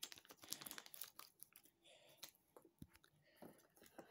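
Faint crinkling, rustling and small irregular clicks of packaging being handled and opened.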